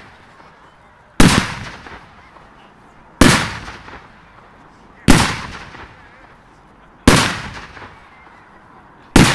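Air bomb firework cake firing shot by shot: five loud bangs about two seconds apart, each trailing off in an echo.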